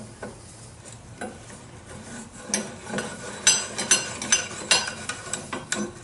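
Irregular light metallic clicks and clinks from the metal parts of a 1949 Studebaker truck's column gearshift assembly, clamped in a bench vise, as its threaded end cap is screwed down and the parts are handled. It is quiet at first, and the clinks come from about two and a half seconds in.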